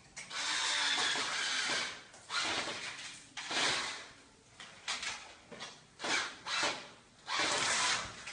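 Power drill boring into the wall above a window to mount a blind, in bursts: a long run of nearly two seconds, several shorter ones and brief trigger blips, then another long run near the end.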